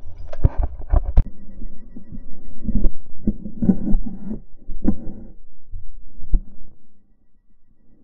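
Irregular, muffled thumps and knocks from a GoPro mounted on a plush zebra dog toy as a golden retriever mouths and jostles it, played back in slow motion so the knocks sound deep and drawn out. The knocks die away about seven seconds in.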